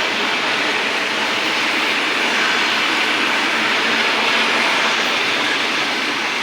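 ED4M electric train passing at speed: a loud, steady rush of wheel and air noise.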